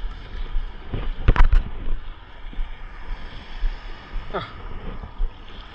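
Wind buffeting the microphone at sea, a steady low rumble, with two or three sharp knocks about a second and a half in and a brief voice sound near the end.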